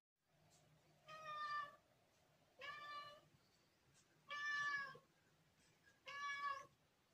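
Domestic cat meowing four times, each meow about half a second long with a short pause between.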